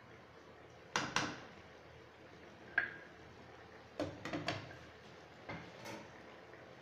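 Metal spoon clinking and scraping against a nonstick frying pan while stirring chicken adobo, a handful of sharp clicks spread over a few seconds, then the spoon laid down on a plate near the end.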